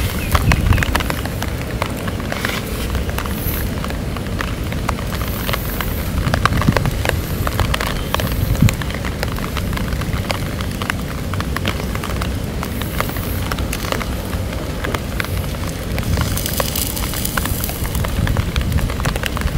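Open cooking fire crackling with many small sharp pops, over a steady low rumble.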